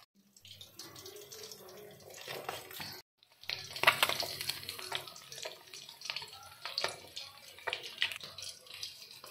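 Pabda fish frying in hot mustard oil in a kadai: a steady sizzle full of small crackling pops. It drops out briefly about three seconds in at a cut, then returns louder.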